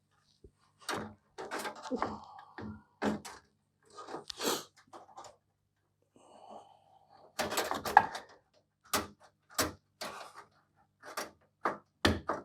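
A graphics card being handled and fitted back into a desktop PC: a series of irregular clicks, knocks and clunks of the card and case, the loudest cluster about eight seconds in.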